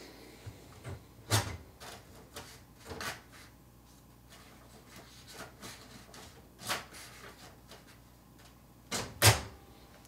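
Paper release lever of a Triumph Adler Satellite III electronic typewriter clacking as it is worked while the sheet is straightened in the platen. There are a few separate clacks, the loudest about a second and a half in and two close together near the end.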